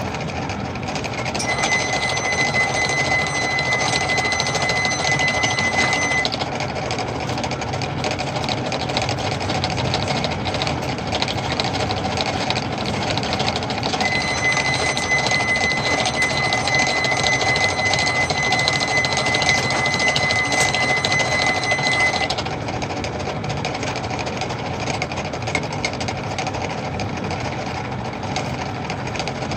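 Metal lathe running while square-threading a large bolt, with a steady mechanical clatter. A high steady whine comes in twice, for several seconds each time.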